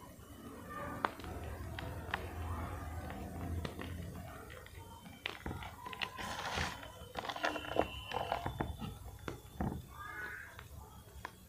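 Reformed gym chalk crushed and crumbled in the hand: dry, soft crunching with irregular crackles and snaps, busiest and loudest in the middle of the stretch.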